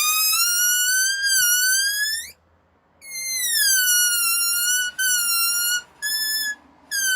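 Air squealing out of a balloon through its stretched neck: a high whistling note that rises and cuts off, then starts again and slides downward. It is broken by several short pauses as the neck is pinched and let go.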